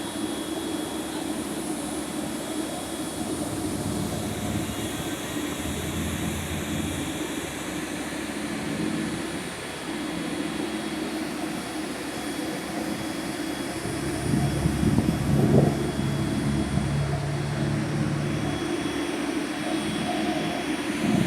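Heavy machinery running steadily, a constant mechanical hum that swells into a louder, lower rumble about two-thirds of the way through.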